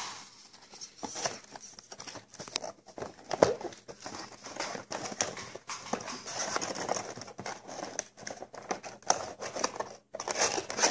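Toy packaging being handled and torn open by hand: irregular rustling with many small clicks and snaps.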